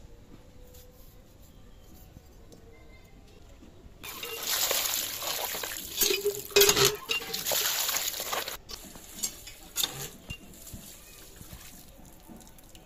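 Water pouring from a hand pump onto fish pieces in a plastic colander, splashing as hands rub them clean, for about four seconds starting a few seconds in. Afterwards a few scattered splashes and knocks.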